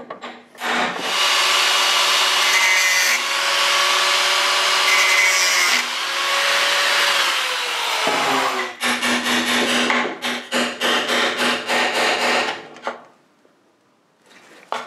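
Hand tools and a power tool working on a motorcycle exhaust pipe joint. A tool runs loudly for several seconds with a steady whine, which falls in pitch as it winds down. A rapid run of sharp taps follows for about four seconds, then stops.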